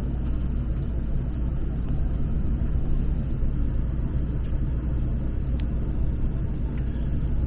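Strong storm wind buffeting a motorhome, a steady low rumble with a couple of faint ticks.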